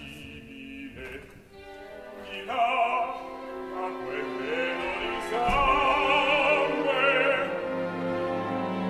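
Opera singing with orchestral accompaniment: after a soft orchestral passage, a singer's voice with vibrato enters about two and a half seconds in.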